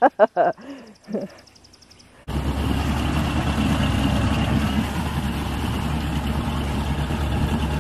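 A few brief voice sounds, then about two seconds in the steady running of a small fishing boat's motor cuts in abruptly, with a constant low hum and wind noise as the boat moves along.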